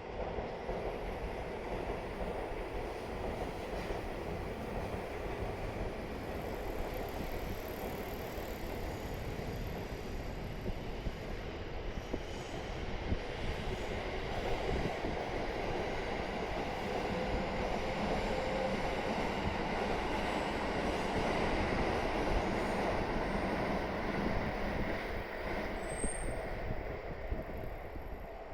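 Tobu Skytree Line electric train running on the rails, growing louder to a peak about three quarters of the way through and easing off near the end. A brief high wheel squeal comes near the end.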